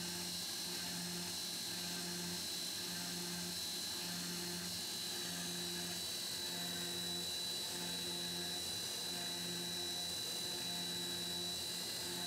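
Tormach PCNC 1100 CNC mill cutting aluminum plate with a two-flute carbide endmill in a high-speed pass: a steady high-pitched whine with a lower hum that swells and drops about once a second as the cutter sweeps through its passes.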